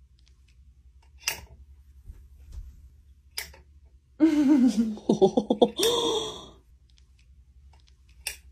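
A person's wordless voice for about two seconds in the middle: a falling drawn-out sound, then a quick run of short pulses, ending breathy. Three sharp clicks are spread around it.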